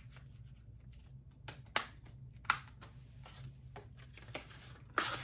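Plastic Blu-ray case being handled and closed: a few sharp clicks with light plastic rustling between, the loudest click near the end.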